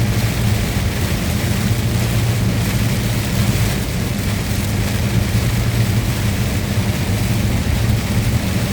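Steady drone of a truck's engine and tyre noise heard inside the cab while driving at a constant speed, with a hiss from the wet road.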